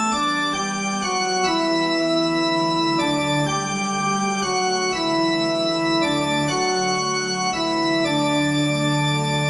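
Organ-sounding keyboard music: sustained chords held and changing roughly once a second.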